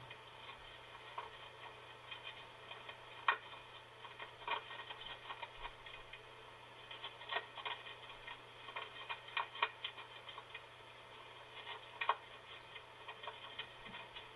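Female barred owl cracking and crunching eggshell in her bill as she helps a hatching owlet get clear of the shell: irregular sharp cracks and clicks, sometimes two or three in quick succession.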